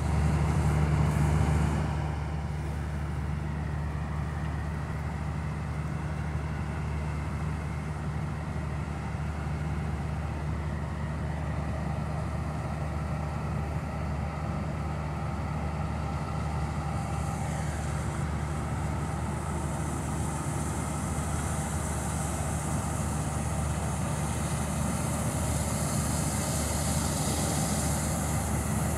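Combine harvesters running while cutting rapeseed: a steady low engine drone, with a high hiss that grows louder in the last third.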